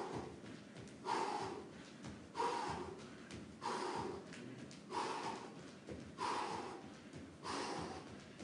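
A man breathing hard while shadowboxing, with a sharp, forceful exhale about every second and a quarter, seven in all.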